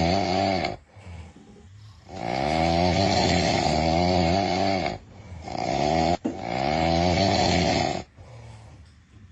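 A man snoring loudly: long, wavering snores with short breaks between, the longest lasting about three seconds.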